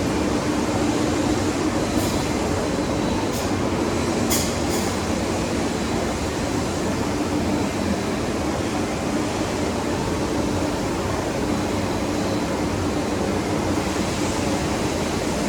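Citizen Cincom K16 Swiss-type CNC lathe running: a steady mechanical hum and whir, with a few short sharp clicks a few seconds in.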